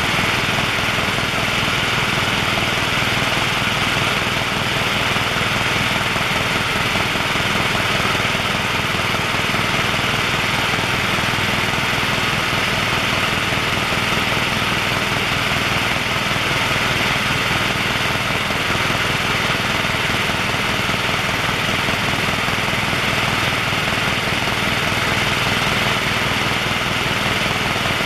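Loud, steady cabin noise of a HeliJet passenger helicopter in cruise: turbine whine and rotor drone together, with a thin high tone held steady throughout.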